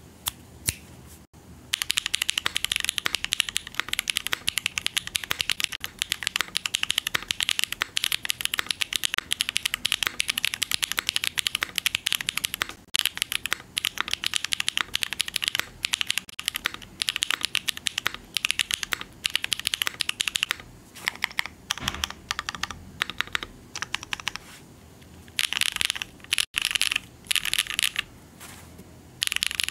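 Custom mechanical keyboard (CKW 80 with a carbon-fibre plate, lubed SWK F3 switches and Domikey Hush keycaps, built without foam) being typed on. A few single keystrokes come first, then fast, continuous typing from about two seconds in, which breaks into shorter bursts with pauses after about twenty seconds.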